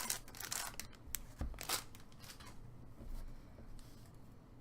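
Trading card pack wrapper crinkling and crackling as it is torn open, with sharp crackles mostly in the first two seconds, then softer rustling as the cards are handled.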